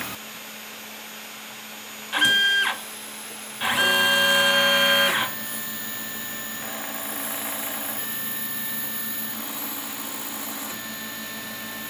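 Stepper motors of a DIY 3D printer whining as its axes move: a brief whine that glides in pitch about two seconds in, a louder steady whine for about a second and a half, then quieter tones that change pitch every second or two as the print head moves.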